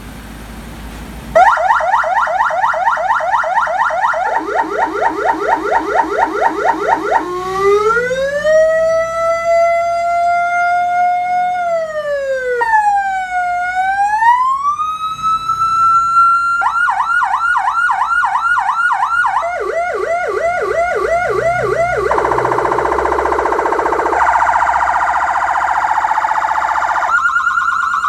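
Electronic emergency-vehicle siren run through its tones, starting about a second and a half in: a fast warbling yelp, then a slow rising and falling wail, then faster warbles again, and a steady tone near the end. The tone changes every few seconds.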